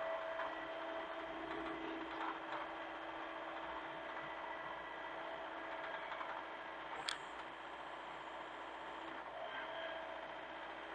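Hitachi mini excavator's diesel engine running steadily, with one sharp knock about seven seconds in.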